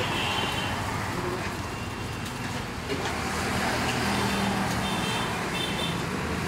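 Steady road traffic noise of vehicles passing, with an engine hum growing a little louder about four seconds in.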